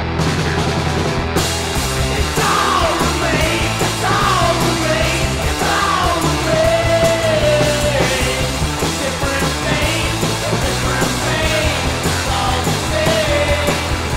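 Indie rock song played loudly by a full band, with a bending melodic lead line over it from about two seconds in.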